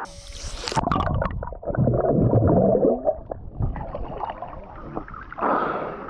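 A splash with a sharp hiss, then muffled gurgling and rumbling of water around a submerged microphone, loudest about two to three seconds in.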